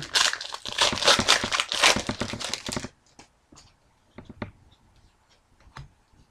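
A trading-card pack's wrapper being torn open and crinkled: about three seconds of dense crackling, then scattered light clicks and taps.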